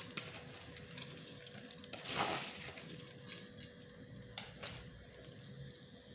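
White rice being added to and stirred through fried onions in a cooking pot: a brief scraping rustle about two seconds in, then several light clicks and knocks of the spoon against the pot.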